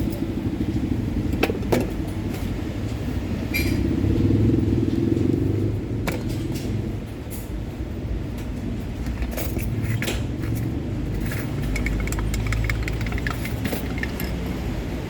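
A motor vehicle engine running nearby as a steady low hum, with scattered light clicks and clinks.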